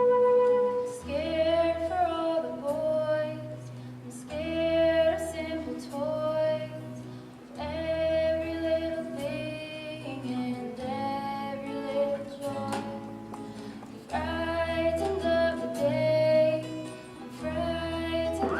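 Female voice singing a slow song over a live instrumental accompaniment.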